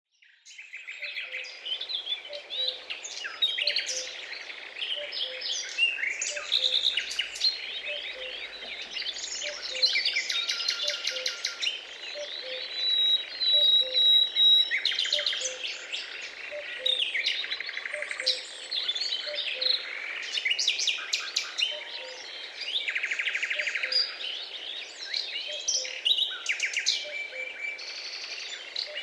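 A chorus of small birds chirping and trilling in dense, overlapping calls, beginning abruptly out of silence. Beneath it a faint low note repeats about once a second.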